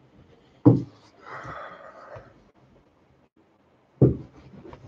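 Two sharp thumps about three seconds apart, with a soft breathy rustle between them.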